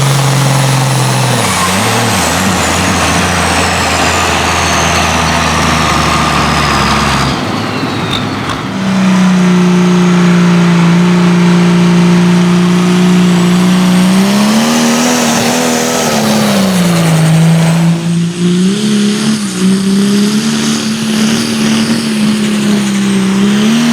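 Heavily loaded tractor-pulling engines running at high revs. A high turbo-like whistle falls slowly in pitch over the first several seconds. The sound then changes abruptly, and an engine holds a steady note before its pitch dips and rises again twice near the end.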